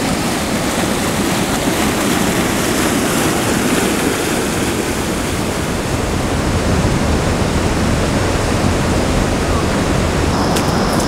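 Water rushing and churning as it pours through the gates of a river fish weir, a steady loud rush. Near the end a faint high steady tone and a few light clicks join in.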